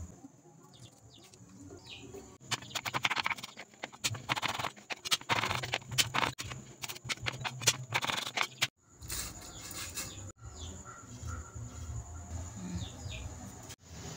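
Kitchen knife chopping shallots and garlic on a wooden cutting board: a quick, uneven run of sharp knocks starting a couple of seconds in and stopping abruptly near nine seconds. There are faint short chirps before and after it.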